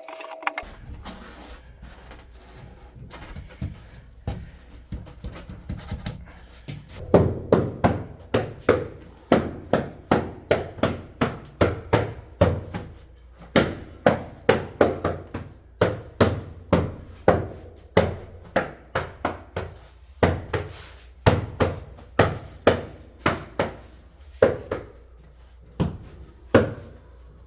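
Repeated sharp knocks, about two a second with brief pauses, starting about seven seconds in and continuing to the end.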